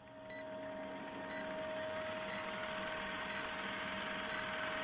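Film-leader countdown sound effect: a short beep once a second, five times, over the steady rapid clatter and hum of a running film projector.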